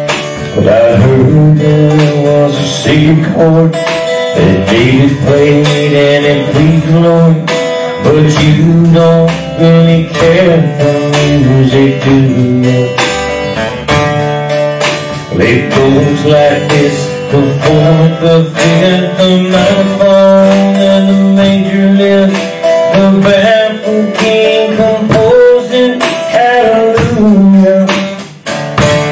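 Live country band playing loud: a strummed acoustic guitar with upright bass and drums.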